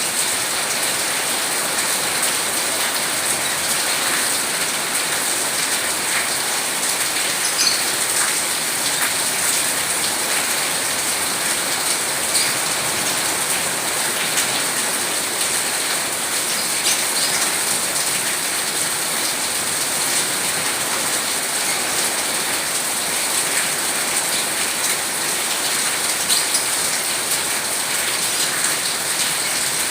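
Steady rain with a dense patter of individual drops hitting a surface.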